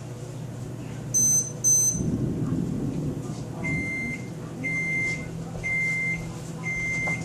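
Electronic beeps: two short high-pitched beeps about a second in, then four steady mid-pitched beeps about once a second, over a low electrical hum.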